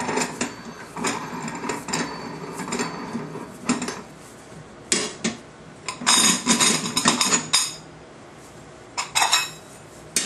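Metal clicking and clattering from the Daia HPP-02 electric-hydraulic punch and its steel punch and die parts being handled after a hole is punched, in several irregular bursts, the loudest rattle about six to seven and a half seconds in.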